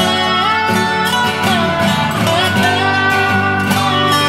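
Background music led by acoustic guitar, with sliding melody notes.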